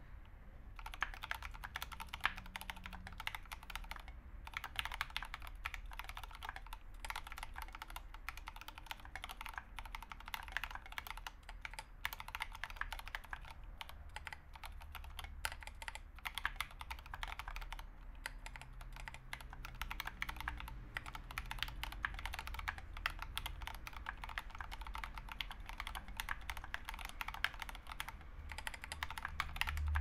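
Mechanical keyboard typing on an Idobao ID80 with Krytox-lubed Turquoise Tealio 65g linear switches and SA-profile ABS keycaps: a fast, steady stream of keystrokes that starts about a second in, with a few brief pauses.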